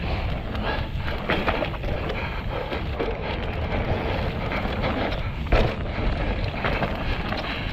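Mountain bike rattling over a rough, rocky trail: tyres on rock and repeated knocks from the bike, with wind rumbling on the microphone. A heavier knock about five and a half seconds in.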